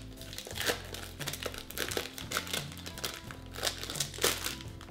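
Kit Kat wrappers being torn open and crinkled by hand: a run of irregular crackles and rustles.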